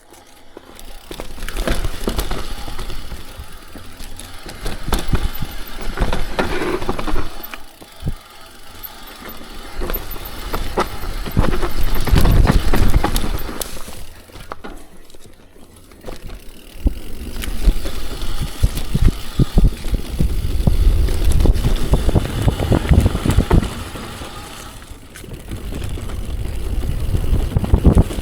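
Mountain bike ridden fast down a rough dirt downhill trail: tyres on the ground, chain and frame clattering over bumps, with wind buffeting the microphone. The noise swells and dips with the terrain and eases briefly twice.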